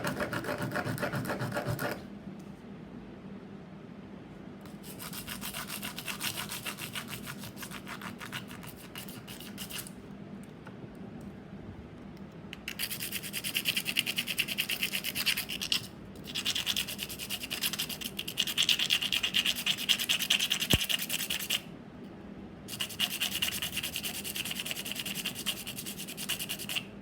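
Metal being filed or scraped, likely a soldering-iron bit being shaped. The rapid scraping comes in about five bursts of a few seconds each, with short pauses between them.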